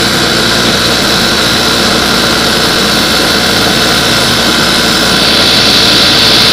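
Industrial high-speed lockstitch sewing machine running continuously while test-sewing a single layer of fabric, a steady whir that gets a little louder in the last second or so.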